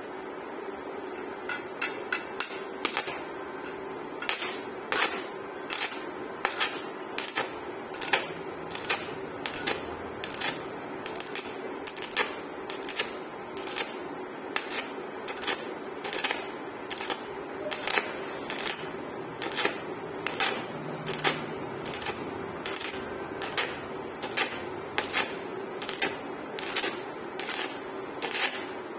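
Stick welding arc on rusty 0.7 mm sheet steel, crackling in short repeated bursts of about two a second, as the arc is struck and broken along the seam.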